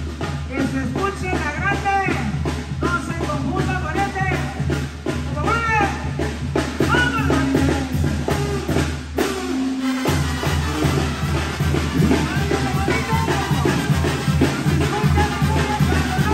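Live Mexican brass band (banda) playing a dance tune: a tuba bass line and bass drum under a brass melody. The bass drops out briefly about ten seconds in, then the band comes back in full.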